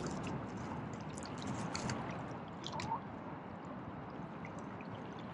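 Water lapping gently at the shore, a steady wash with small irregular splashes and drips.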